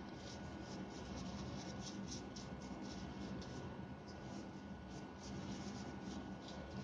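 A paintbrush's bristles scrubbing over a drill machine's plastic trigger switch to brush it clean, in quick strokes at about four a second, over a steady low hum.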